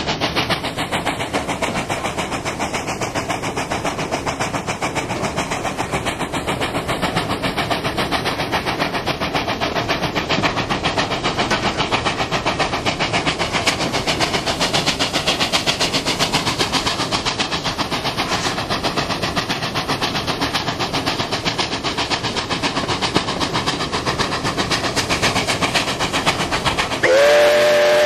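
NSWGR 59 class 2-8-2 steam locomotive 5910 running at speed, its exhaust beating fast and steadily along with the running noise of the train. Near the end the steam whistle sounds one steady chord.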